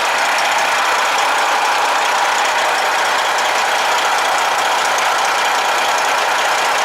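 Freightliner Cascadia semi-truck's diesel engine idling steadily.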